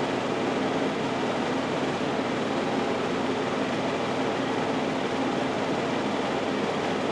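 Steady whooshing noise with a low, even hum from a running machine, with no change in pitch or level.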